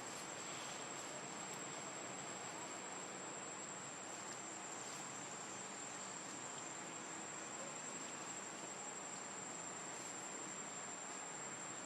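Faint, steady high-pitched insect trill, unbroken, over a soft hiss.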